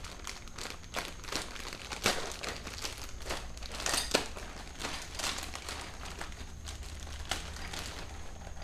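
Plastic bags of hardware and paper packaging rustling and crinkling as they are handled, with scattered sharp small clicks.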